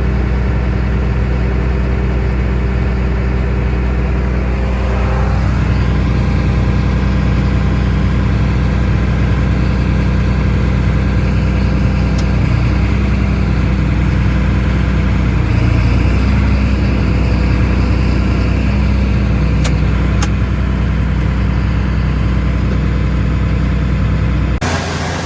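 John Deere S660 combine running steadily while harvesting corn: a continuous engine and machinery drone. It drops off abruptly just before the end.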